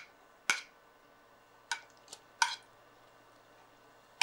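A metal spoon clinking and scraping against a plate in about five short, sharp strokes, as it pushes pieces of dough off the plate.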